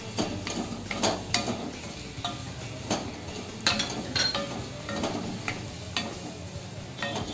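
A flat spatula scraping and knocking against a metal kadai as a thick vegetable-and-masala mixture is stirred and sautéed, in irregular strokes about once or twice a second, over a light frying sizzle.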